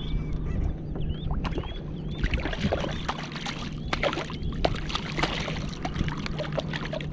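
A hooked fish thrashing at the surface beside a kayak, with irregular splashing and sharp clicks that are busiest in the middle of the stretch.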